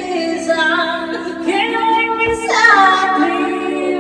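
A child singing along to music, the voice gliding over steady held accompaniment chords.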